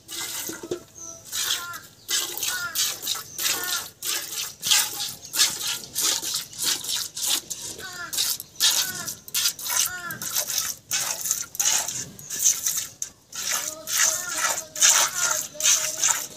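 Cow being milked by hand into a metal bucket: milk jets squirting into the pail in a steady hissing rhythm, about two or three squirts a second.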